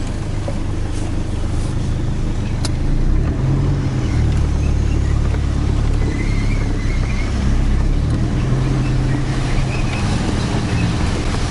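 Toyota Hilux pickup's engine running steadily as it drives over off-road ground, a continuous low drone, with a single sharp knock a couple of seconds in.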